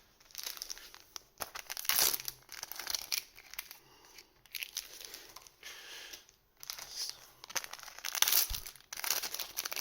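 Small trading-card booster packs being torn open, their wrappers crinkling and crackling in irregular bursts.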